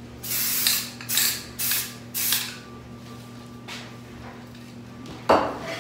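Plastic bags used as masking around a door's glass panel rustling in four short bursts as they are pressed and smoothed by hand, then a single sharp knock about five seconds in.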